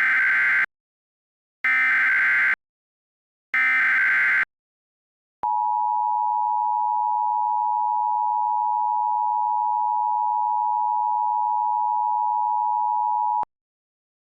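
Emergency Alert System tone sequence, computer-generated: three short bursts of SAME header data tones, about two seconds apart, then the two-tone EAS attention signal held steady for about eight seconds before cutting off sharply. Together they signal the start of an emergency alert, here a flash flood warning.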